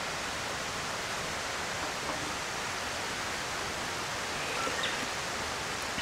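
Steady rushing of a nearby mountain stream, with a couple of faint light clinks near the end.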